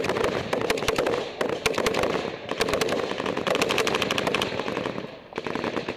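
Machine gun firing long bursts of automatic fire close by, with short breaks about two and a half and five seconds in.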